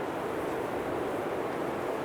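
Blizzard wind blowing steadily: an even rushing noise, strongest in the low-middle range, with no gusts or breaks.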